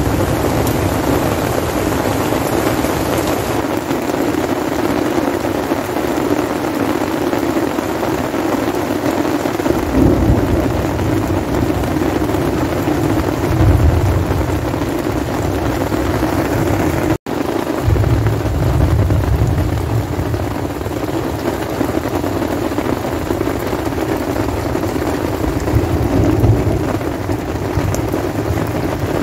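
Heavy rain pouring steadily, pattering on a nylon tent flysheet. Low rolls of thunder swell up about four times.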